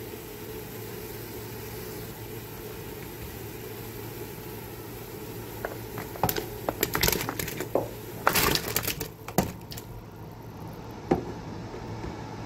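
Water at a rolling boil bubbling steadily in a stainless steel pot. About six seconds in, chunks of watermelon rind are tipped in from a plastic container, with a run of splashes and sharp knocks for a few seconds, and one last knock near the end.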